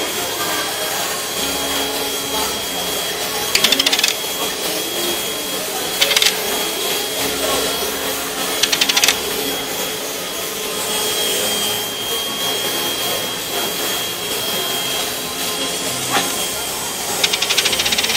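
A metal coin spun and rattling on a wooden tabletop: four short bursts of fast clatter as it wobbles down, and one single click, over a steady background hiss with a faint high whine.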